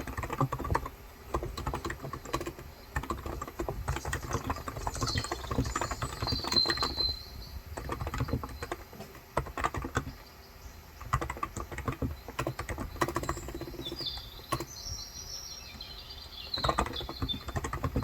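Steady, fast typing on a Cox Endeavour electro-capacitive tenkeyless keyboard with light 35 g keys, a dense run of soft keystroke clacks. Birds chirp in the background, with short high calls at about five seconds in and again near the end.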